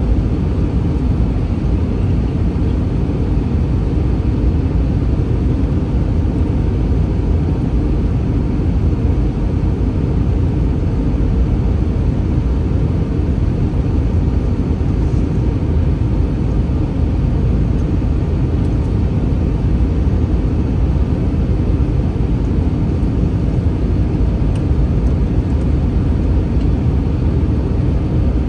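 Steady low rumble of cabin noise inside an Airbus A321 airliner: its engines and the air rushing past the fuselage, unchanging throughout.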